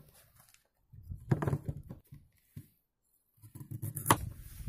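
Kitchen knife cutting a carrot on a bamboo cutting board: a few short knocks of the blade on the board, the loudest about four seconds in, over a low rumble in the second half.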